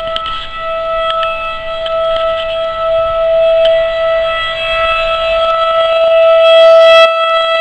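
Outdoor tornado siren sounding one steady, loud tone that swells and fades slowly in loudness. A rushing background noise under it cuts off abruptly near the end.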